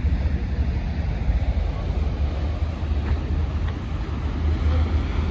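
Wind buffeting the phone's microphone: a steady, fluttering low rumble with a fainter hiss over it.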